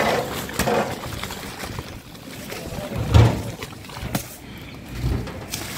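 Soaked seeraga samba rice being tipped into a huge pot of boiling water, the water sloshing and splashing. A dull thump comes about three seconds in, the loudest moment, and another near the end.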